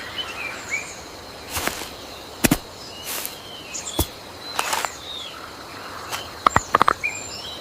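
Jungle ambience: birds chirping over a steady hiss, with a scattering of sharp knocks and a quick run of several knocks near the end.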